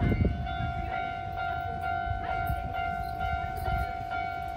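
Japanese railway level-crossing alarm ringing over and over at a single pitch, over a low rumble.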